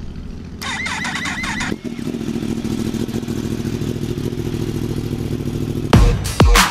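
Yamaha R1M's crossplane inline-four engine running steadily at idle, with a brief high wavering whine over it in the first couple of seconds. About six seconds in, electronic music starts with deep falling bass hits.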